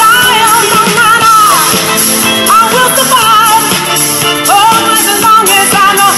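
Loud dance music with a singer's voice carrying the melody.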